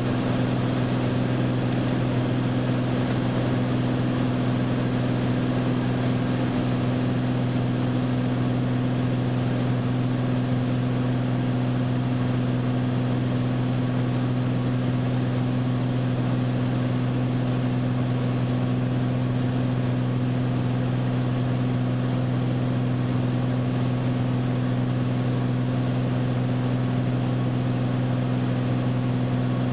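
Single-engine propeller airplane's engine and propeller heard from inside the cockpit: a steady, low drone with a strong hum and its overtone, holding constant power.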